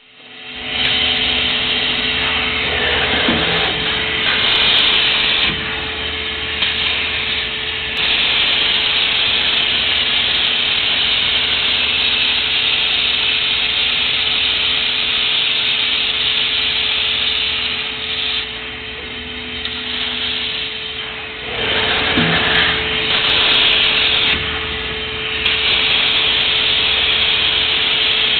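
Gantry laser welder at work, welding through thin 304 stainless sheet into thicker 304 stainless plate: a steady hiss with a constant machine hum under it. It drops quieter for a few seconds about two-thirds through, then comes back.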